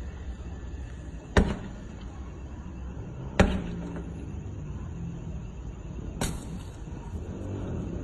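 Hard blows struck against a Volkswagen sedan's bodywork, two loud impacts about two seconds apart, then a softer, brief crash about six seconds in, over a steady low background rumble.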